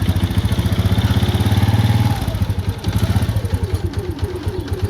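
Honda motorcycle engine running with an even, steady exhaust beat, easing from a fast idle down to a slower idle about two seconds in.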